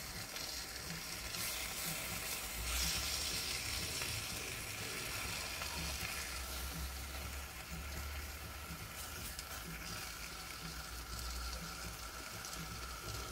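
Bacon sizzling in a frying pan, a steady frying hiss that swells a little about three seconds in, with a low hum underneath. It is being fried until crispy.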